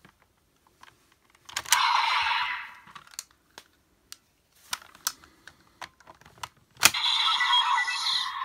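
Hard plastic clicks and snaps as candy-toy raise buckles are pulled out and set into a Kamen Rider Geats toy belt. A short electronic sound effect plays from the belt's small speaker about two seconds in. Near the end, a loud click starts another run of the belt's sound effects.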